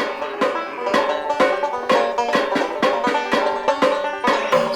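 Banjo played fast in a bluegrass style, a quick run of plucked notes.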